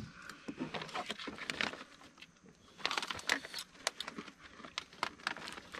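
Crinkling and rustling of a plastic bag of krupuk crackers being handled, with many small clicks and crackles, thickest about three seconds in.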